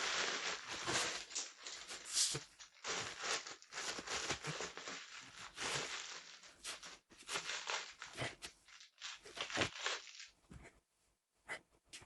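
Packaging being handled and torn open: irregular crinkling and tearing, dying down to a few short rustles and clicks near the end.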